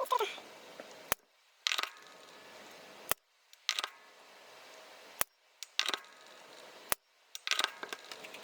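Sony ICF-SW30 shortwave radio hissing, with a sharp click about every two seconds, each followed by a moment of quiet and then a short burst of static, four times over.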